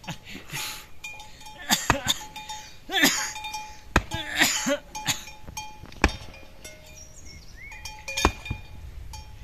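Four sharp knocks, evenly spaced about two seconds apart, with faint ringing clinks between them.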